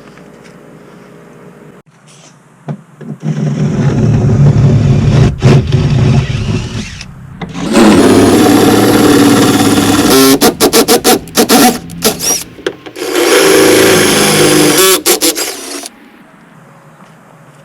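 Power drill running in three long spells with quick on-off trigger pulses between them, drilling the hexagonal riv nut holes out to 7/16 inch.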